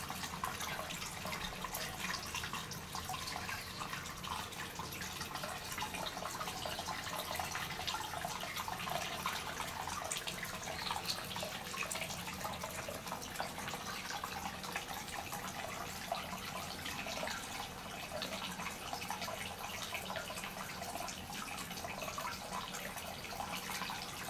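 Hot-spring water pouring steadily from a spout into a bath, with a constant splashing trickle.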